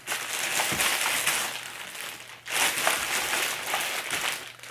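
Clear plastic bag crinkling as it is handled and turned over in the hands, in two long stretches with a brief pause about two and a half seconds in.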